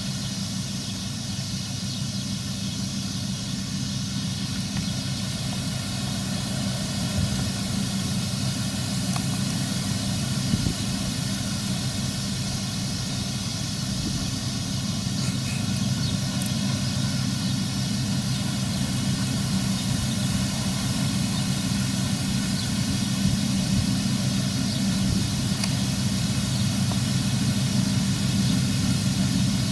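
New Holland combine harvester running under load while cutting grain: a steady engine and threshing drone that slowly grows louder as the machine comes closer.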